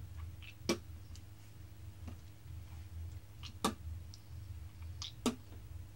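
Handling of a round can of dipping tobacco: three sharp clicks, a second or more apart, with a few fainter ticks between, over a steady low hum.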